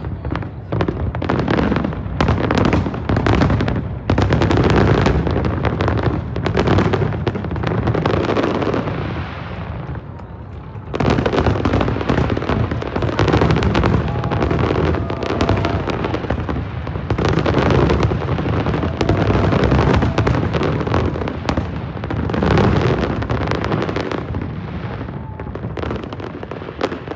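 Aerial fireworks bursting in a dense, rapid barrage of booms and crackles, easing briefly about ten seconds in before picking up again.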